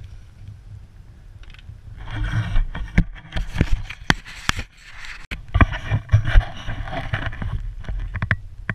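Snow hissing and scraping under a rider turning through deep powder, in two long rushes, with sharp knocks from the handheld camera pole and a steady rumble of wind on the microphone.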